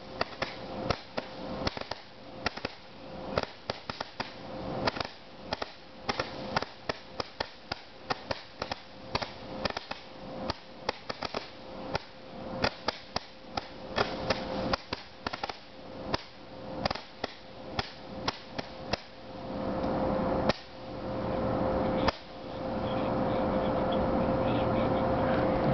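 A 196-shot consumer firework cake firing a rapid string of shots and bangs, several a second. From about twenty seconds in, the separate shots merge into a louder, continuous rush of noise.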